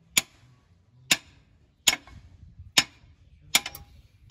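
Sharp metallic clicks from a long steel hand tool being worked on the truck's clutch and bellhousing area, five clicks at a steady pace a little under a second apart.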